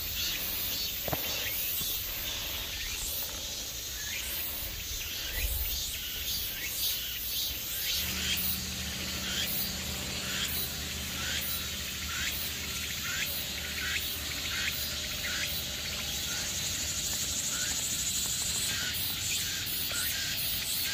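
Insects buzzing in a steady chorus, with a pulsing call repeating about twice a second over a high, hissing drone.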